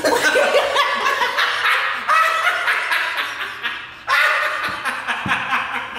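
A group of people laughing hard in high, rapid peals, dying down briefly about four seconds in before starting up again.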